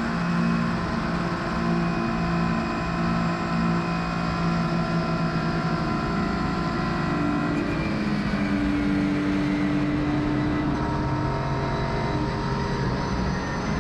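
Ligier race car engine running hard at high revs on a flying lap, recorded onboard; the engine note holds steady, then changes pitch about halfway through.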